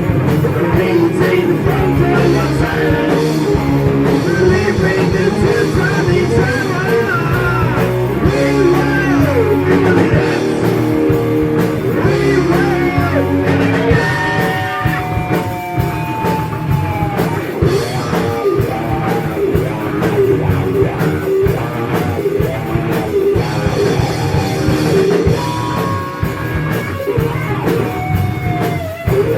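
Heavy metal band playing: distorted electric guitars, bass and drums, with a lead line gliding up and down in pitch above them.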